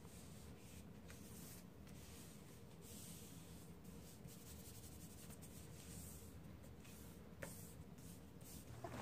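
Faint rubbing of hands smoothing a glued sheet of paper flat onto a board, soft uneven strokes of paper hiss, with one small click about seven seconds in.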